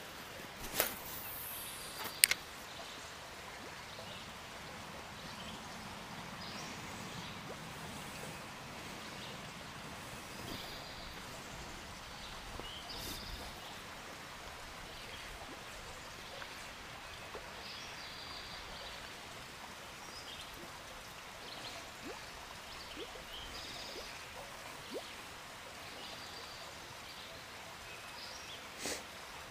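Quiet outdoor ambience: a faint steady background hiss with scattered faint bird chirps. Two sharp clicks of handling near the start, about one and two seconds in.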